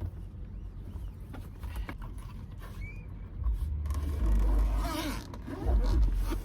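Handling of an electric griddle and its carrying case: light clicks and knocks, then about four seconds in a louder rough rustling and scraping with low bumps against the microphone.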